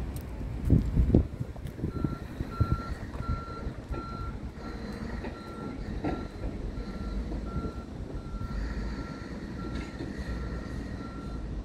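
A vehicle's reversing alarm beeping steadily at about two beeps a second, starting about two seconds in, over a continuous low rumble. A few knocks come in the first second or so.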